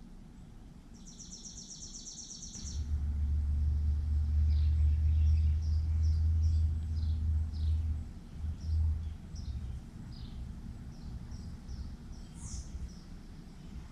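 Backyard songbirds chirping in many short, quick, falling notes, with one sharper falling call near the end, after a brief high buzzy trill near the start. A low rumble, the loudest sound, comes in about a third of the way through and fades out past the middle.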